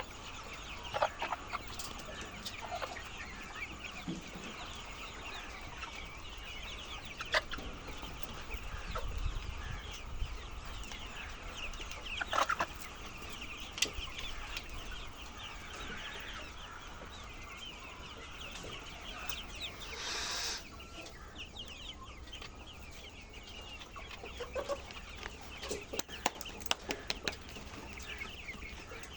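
A flock of laying hens clucking and chattering continuously, many calls overlapping, with scattered sharp clicks and a short rushing noise about twenty seconds in.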